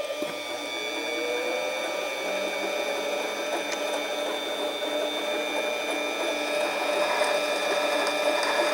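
Harbor Freight 7x10 mini lathe running: the spindle motor comes up to speed with a rising whine over the first couple of seconds, then runs steadily with the whir of its gear train.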